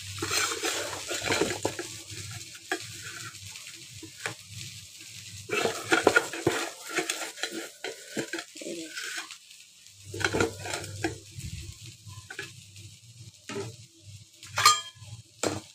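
Silicone spatula stirring and scraping poha (flattened rice) around a metal kadhai in irregular strokes, over a light sizzle of frying. A couple of sharp taps against the pan near the end.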